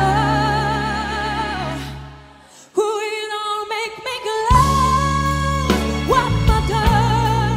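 Female lead vocalist singing live with a band: a long held note with vibrato over the full band. About two and a half seconds in, the band falls away almost to silence. The voice comes back nearly alone, and the full band with bass returns about four and a half seconds in.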